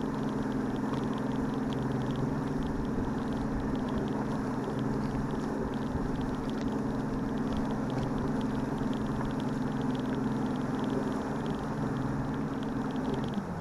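Bass boat's outboard motor running at idle speed with a steady hum. The engine note drops near the end as it is throttled back.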